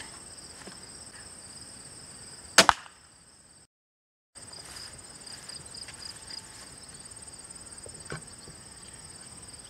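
A crossbow shot into a target shield, heard as one sharp crack about two and a half seconds in. Insects chirr steadily and high-pitched throughout, and a small knock comes near the end.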